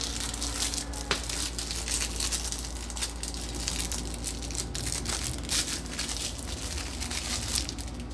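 Clear plastic wrapping crinkling and crackling in irregular bursts as a remote control in its bag is handled and unwrapped.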